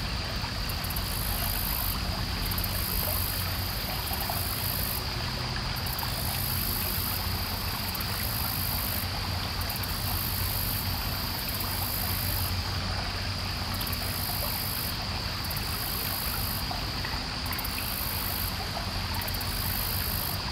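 Insects trilling in a steady high chorus, with a higher layer that pulses on and off every second or so, over the low steady rush of a small river.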